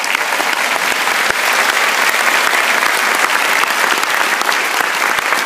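Theatre audience applauding, loud and steady.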